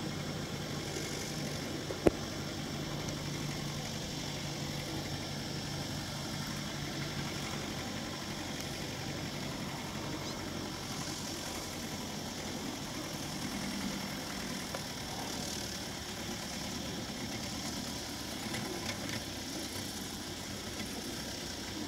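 Diesel engine of a Belarus MTZ tractor running steadily under load as it hauls a heavily loaded cassava trailer, with a single sharp click about two seconds in.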